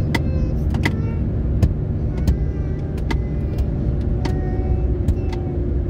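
Steady road and engine noise inside a car's cabin at highway speed, with scattered sharp clicks over it.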